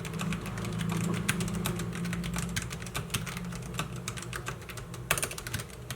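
Logitech G813 low-profile mechanical keyboard with linear switches being typed on quickly: a fast, uneven stream of key clicks, with a louder flurry about five seconds in, over a steady low hum.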